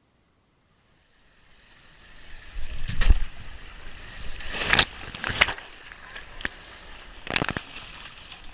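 Water rushing and sloshing along a plastic water slide under a sliding rider, with several sharp loud splashes. It starts after about a second of near silence.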